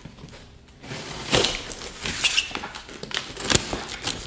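Cardboard box being cut open with a box cutter: irregular scrapes, slicing and knocks on the cardboard and packing tape, starting about a second in.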